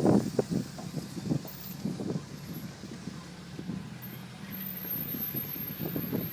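Land Rover Discovery 3's engine running at steady low revs while driving off-road, with irregular knocks and thumps that are loudest in the first couple of seconds.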